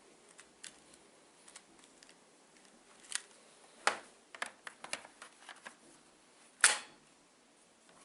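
A series of sharp clicks and knocks from hard objects being handled, scattered and irregular, with a quick run of small clicks in the middle and one louder knock near the end.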